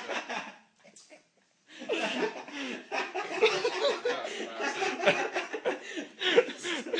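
Laughter with some talking mixed in. It stops for about a second early on, then goes on in long bursts.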